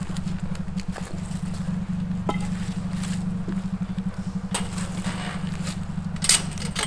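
A low, steady engine drone, with a few separate clicks and knocks over it.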